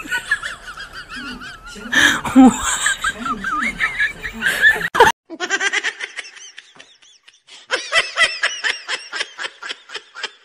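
A wavering, whining vocal sound mixed with a voice. After an abrupt cut about halfway through comes laughter: quick, evenly repeated bursts of giggling.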